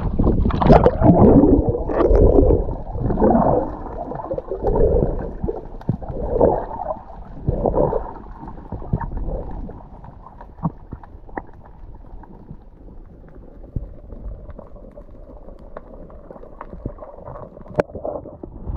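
Diving underwater: splashing and bubbling gurgles in irregular surges for the first several seconds. These settle into a muffled underwater hush with scattered faint clicks.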